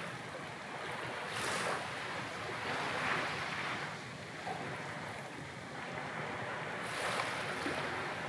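Sea waves washing in, a steady hiss of surf that swells three times, the first about a second and a half in, the second around three seconds and the third near seven seconds.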